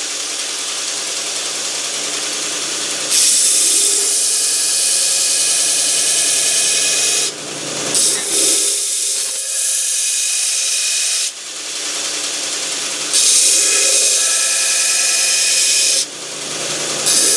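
Belt sander with a coarse 36-grit belt running steadily while a steel knife blade is ground on it. The blade is pressed to the belt for long passes of about four and three seconds, with louder grinding hiss each time, and is lifted off in between.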